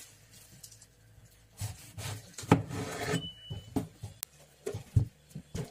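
Knife cutting tomatoes into quarters: a couple of scraping strokes about two seconds in, then several light knocks of the blade near the end.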